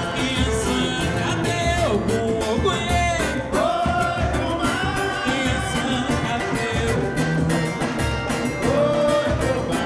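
Live samba band playing: a singing voice carries the melody over steady low surdo drum beats, hand percussion and strummed small guitars.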